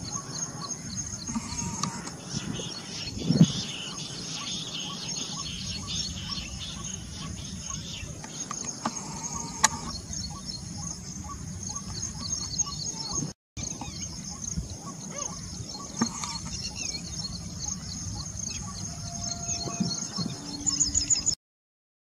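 Outdoor field sound in grass and scrub: birds chirping over a steady, pulsing high hum. A loud low thump comes about three and a half seconds in, and the sound drops out briefly about halfway.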